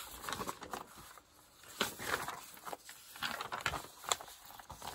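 Sheets of paper being handled: intermittent rustling with a few short taps.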